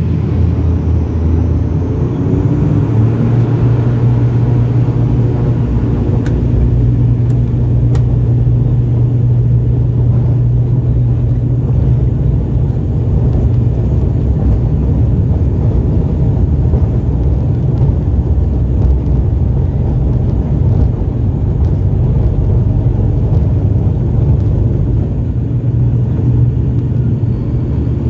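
Turboprop airliner's engines and propellers at takeoff power, heard from inside the cabin: a loud steady drone with a deep hum, through the takeoff roll and climb-out.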